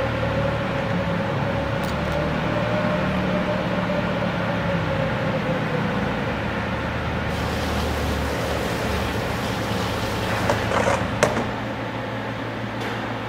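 Steady hum of factory machinery running, with a faint tone that slowly rises and falls, then a few sharp metal clinks and knocks near the end as the stainless pump casing is handled on a steel bench.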